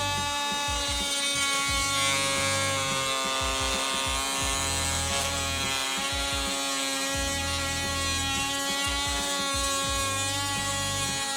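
Oscillating multi-tool with a Spyder bimetal blade running at a steady high whine while cutting, the blade chattering unevenly in the material, most likely PVC.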